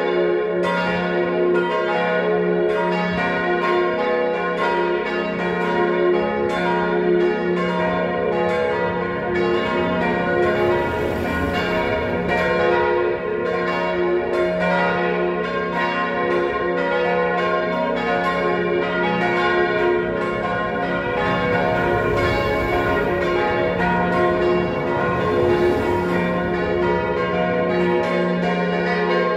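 Peal of four church bells, tuned to C, B-flat, A-flat and F, ringing together in a continuous, overlapping stream of strikes that keep sounding over one another.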